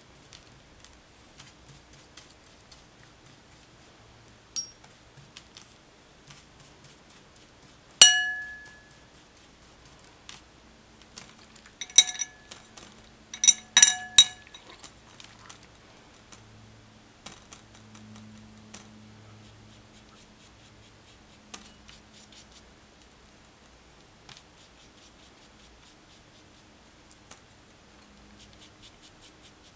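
Watercolour brush clinking against a ceramic mixing plate: one sharp ringing clink about eight seconds in, then a quick run of clinks around twelve to fourteen seconds.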